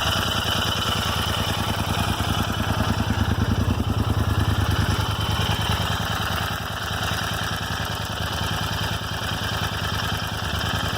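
Royal Enfield Interceptor 650's parallel-twin engine idling steadily, a little louder a few seconds in. The owner reports a random tick from the left rocker cover area, like a clock's second hand, which the dealer has not been able to diagnose.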